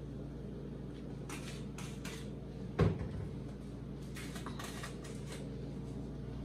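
Seasoning shaken from a shaker bottle into a pot of sauce: a few short rattling shakes in small groups. A single dull knock just before the middle is the loudest sound.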